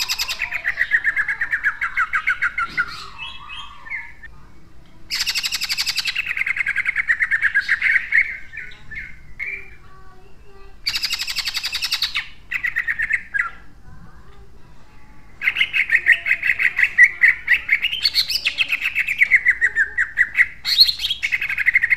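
Male green leafbird (cucak ijo) singing in four bouts of fast, tightly packed, harsh bursts of notes and trills, with short pauses between them.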